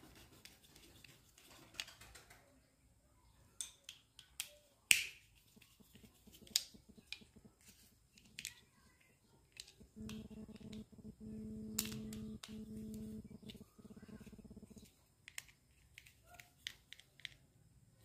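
Faint clicks and small scrapes of a screwdriver tightening the terminal screws of a plastic bed switch while it is handled, with a sharper click about five seconds in. A steady low hum joins from about ten to fifteen seconds in.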